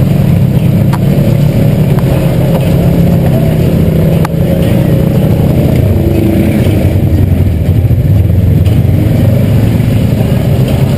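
ATV engine running steadily as the machine wades through river water. One sharp knock sounds about four seconds in.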